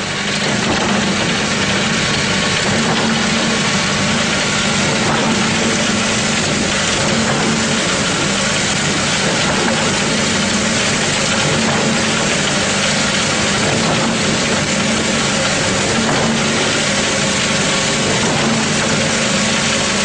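HAMAC concrete pump running steadily while pumping concrete on site: a continuous machine drone with a constant low hum and no pauses.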